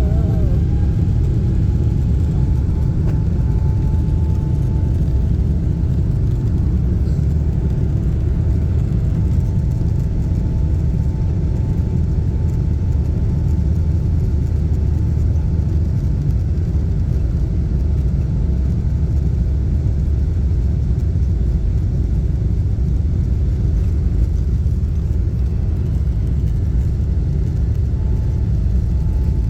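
Jet airliner in flight heard from inside the cabin: a steady low rumble of engines and rushing air, with a faint steady whine above it.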